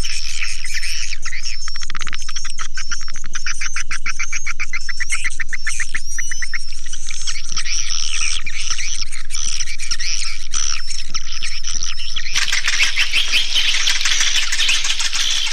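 Swiftlet lure call: recorded swiftlet chirping and twittering, dense and continuous, with a fast buzzy trill a couple of seconds in. About twelve seconds in it changes to a denser, noisier chatter.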